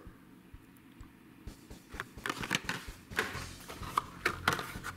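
Carded Hot Wheels toy cars being handled in a cardboard shipping case: light crinkles and clicks of plastic blister packs and card stock, starting about two seconds in.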